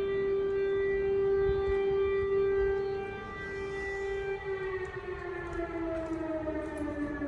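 Civil-defence air-raid siren sounding an alert: one long wail held at a steady pitch, then slowly falling in pitch through the second half.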